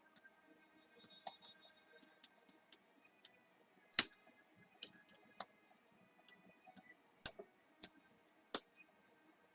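Irregular plastic clicks and snaps of a netbook's keyboard latches being pried loose with a spatula, the loudest about four seconds in and three more near the end.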